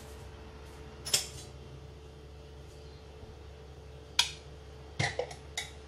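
Ceramic dishes and kitchen utensils clinking on a countertop: one sharp clink about a second in, another about four seconds in, and a quick run of clinks near the end, over a steady low hum.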